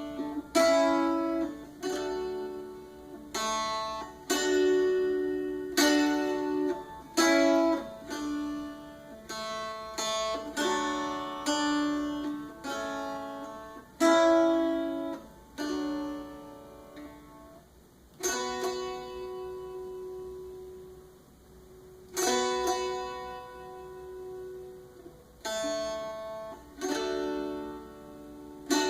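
A slow melody played on a homemade dulcilin, a dulcimer-violin hybrid string instrument. Its single notes start sharply and ring out, with two long held notes past the middle.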